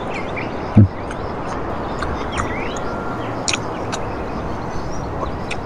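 Steady outdoor background noise with small birds chirping now and then. A short low hum from the man about a second in is the loudest sound, and a couple of faint clicks come midway.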